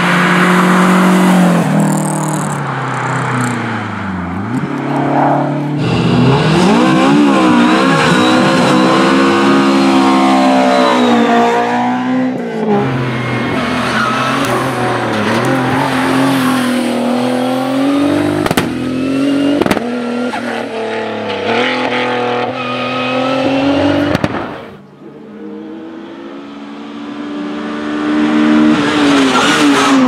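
Race cars on a hillclimb run, heard in several separate passes joined by abrupt cuts. First a Lancia Delta HF Integrale Evo rally car, then other cars including a VW Lupo hillclimb car, each engine revving hard and rising and falling in pitch through gear changes. Near the end the sound drops away, and the next car is heard approaching and getting louder.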